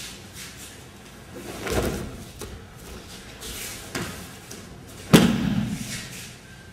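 Bodies hitting the dojo mats as an aikido partner is thrown and breakfalls, with cloth rustling between the impacts. There is a heavy thud about two seconds in, a smaller knock around four seconds, and a sharp, loud slap on the mat a little after five seconds.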